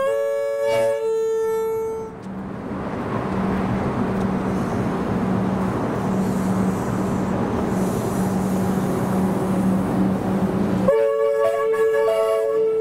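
Melbourne Metro suburban electric train sounding its horn twice. The first blast lasts about two seconds, then comes a steady rumble and hum as the train nears, and a second blast starts near the end as it runs close past.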